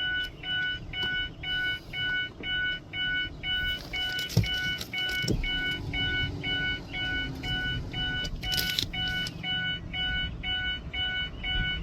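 Steady electronic warning beeping, about two beeps a second, with a couple of knocks around four and five seconds in.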